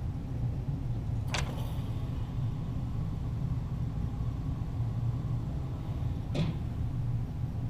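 Two sharp cracks about five seconds apart, one about a second in and one near the end, from .22 Walther GSP target pistol shots heard from the target end of the range, over a steady low rumble.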